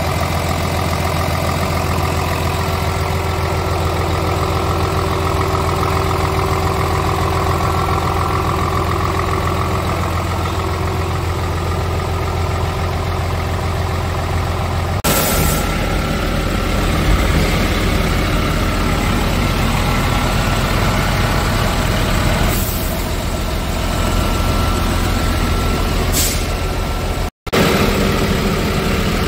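Scania R 450 truck's 13-litre inline-six diesel engine idling steadily, with a few brief hisses and an abrupt change in the sound about halfway through.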